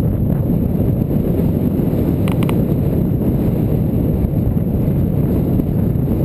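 Wind buffeting the microphone of a bicycle-mounted camera while riding: a steady low rumble. About two seconds in there is a quick cluster of three high ticks.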